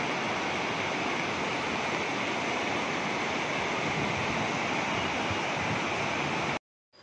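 Steady rush of a flooded river's fast-flowing water, which cuts off suddenly near the end.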